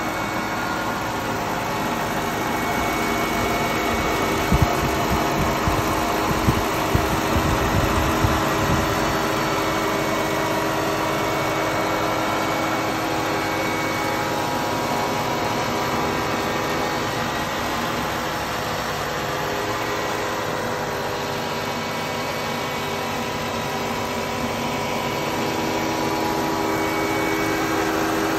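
Mercedes-Benz SL500's 5.0-litre V8 idling steadily, heard up close in the open engine bay with a steady whine from the belt-driven accessories. Between about four and nine seconds in there are a few short knocks and rubbing noises.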